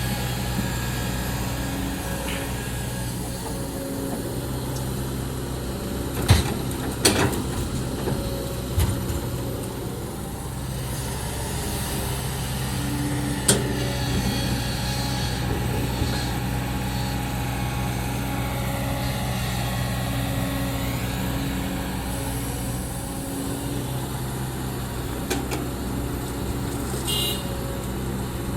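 Hydraulic excavator's diesel engine running steadily under working load, its pitch swelling and easing as the hydraulics work, with several sharp metallic knocks, the loudest about six and seven seconds in.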